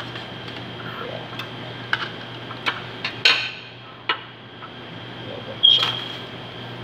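A table knife scraping and tapping on a yogurt cup and a ceramic bowl: a few light clicks, then one sharp ringing clink about two-thirds of the way through. A steady low hum runs underneath.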